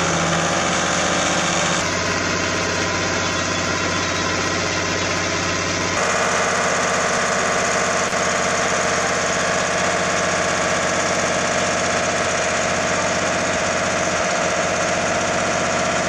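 Stationary engine of a water-well pump running steadily, its sound shifting abruptly twice, about two and six seconds in.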